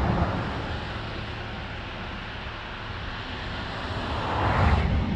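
Reservoir water forced out of a dam outlet pipe and spraying into the air: a steady rushing noise with a low rumble, growing louder near the end and then cutting off suddenly.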